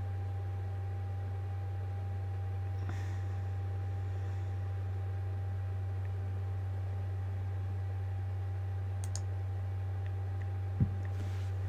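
Steady low hum with a faint thin tone above it, a faint tick about nine seconds in and a single short thump near the end.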